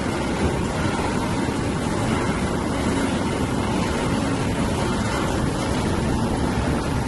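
Mustard-oil expeller presses running: a steady mechanical din with no breaks.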